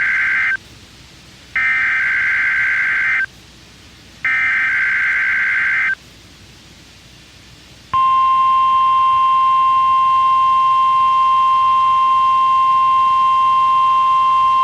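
NOAA Weather Radio (WXK67) weekly test signal, direct audio: the screechy SAME digital header, three short bursts of data tones about a second apart, the first already under way. About eight seconds in, the steady 1050 Hz warning alarm tone starts and holds.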